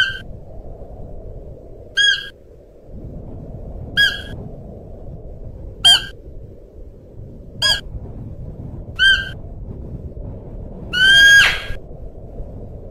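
Siberian musk deer calling: six short, high-pitched calls about every two seconds, then a longer, louder call near the end, over steady low background noise.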